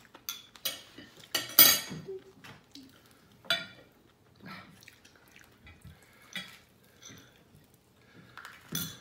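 Plates, bowls and cutlery clinking and knocking at a table, a scattering of separate short clinks with the loudest about a second and a half in.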